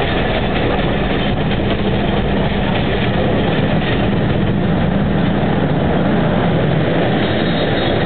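Narrow-gauge Alishan Forest Railway passenger coaches rolling slowly past at close range, with the steady low drone of the train's DL41 diesel locomotive engine running under the rumble of the wheels.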